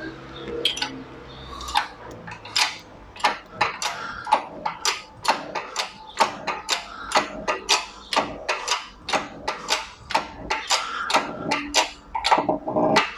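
Hand-pumped hydraulic shop press being worked, its handle and pump making regular metallic clicks, about three a second, as a tapered roller bearing is pressed down onto a milling-machine spindle.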